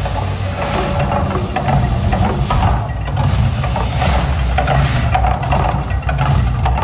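Gas flame effects of the Mirage volcano erupting: a loud rushing hiss of fire jets over a steady low rumble.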